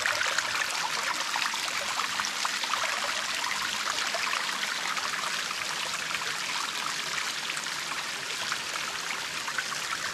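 Shallow stream water trickling and splashing over a rock slab, a steady watery rush that fades slightly toward the end.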